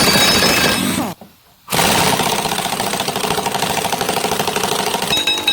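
Impact wrench with a 1-1/8 inch socket hammering on a hydraulic cylinder part to break it loose: a first burst that stops about a second in, then after a short pause a long run of fast, even hammering.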